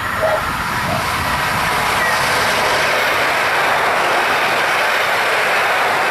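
Koleje Mazowieckie EN57-type electric multiple unit passing close by. A last short horn note sounds in the first second, then a steady loud rush of wheel and running noise as the cars go past.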